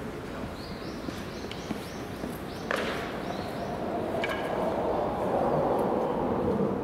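Open-air ballpark ambience: a steady crowd murmur that swells over the second half, a quick run of high chirping in the first few seconds, and a sharp click about three seconds in.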